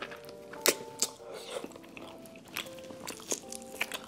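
Close-up eating sounds of biting and chewing stewed pork trotter held in the hands: a string of sharp clicks, the loudest about two-thirds of a second in, over soft background music.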